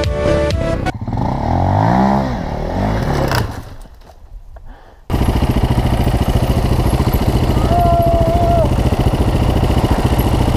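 Music fades out under a bending rev of a dirt bike engine. After a sudden cut about five seconds in, enduro dirt bike engines run at low revs with a steady rapid pulse, and a short tone sounds near the eight-second mark.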